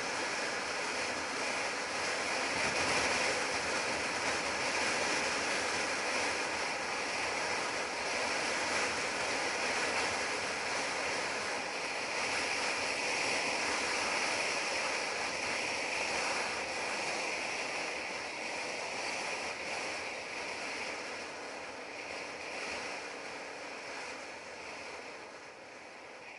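Motorcycle riding at open-road speed: wind rushing over the microphone, with engine and tyre noise beneath it. The noise eases off over the last several seconds as the bike slows for a junction.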